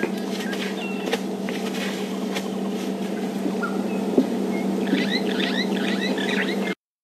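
A steady low hum runs under the faint snaps and rustles of an elephant feeding close by. A rapid run of high chirps comes in about five seconds in, and all sound cuts off abruptly just before the end.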